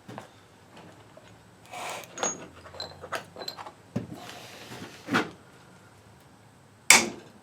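Winch motor and tools being handled on a workbench: scattered short clicks and scrapes, with a sharp metal knock near the end.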